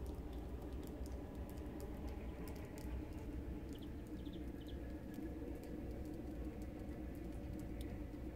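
Quiet outdoor ambience: a steady low rumble with scattered light ticks, and a few brief high chirps around the middle.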